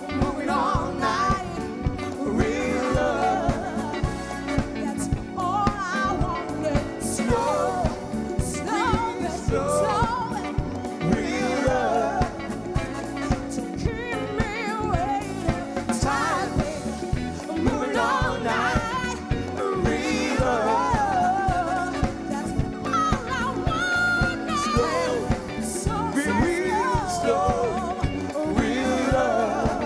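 Live soul band playing: drum kit, electric guitar, bass guitar and keyboards, with a singer's voice over a steady beat.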